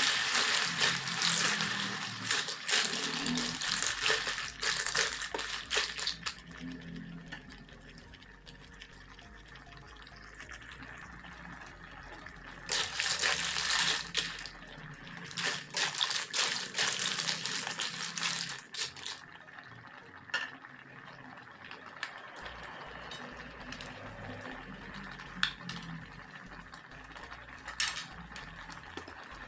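Kitchen sounds of clams being prepared: a watery hiss, louder in the first few seconds and returning in bursts partway through, with scattered sharp clinks like clam shells knocking against each other or the pan.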